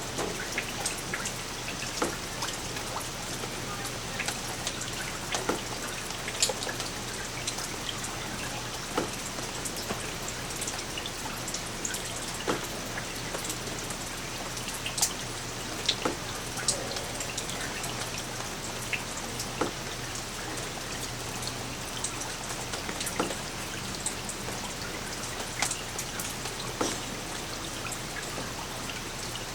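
Light rain falling steadily, a soft even hiss with irregular distinct drops ticking on a surface, a few each second.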